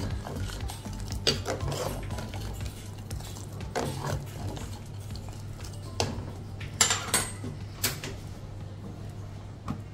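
Steel ladle stirring rasam in a clay pot, knocking and clinking against the pot in about nine sharp, irregular taps, over a steady low hum.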